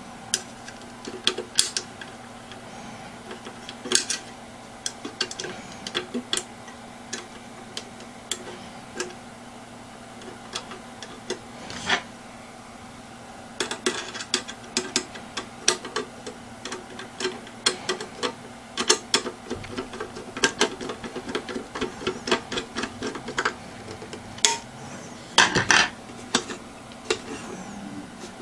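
Irregular sharp clicks and taps of small hard objects, at times in quick runs with a dense cluster near the end, over a steady low hum.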